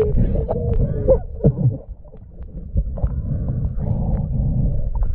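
Muffled underwater sound of a swimmer moving through water: a low rumble with scattered knocks. A wavering tone with pitch glides sounds in the first second and a half.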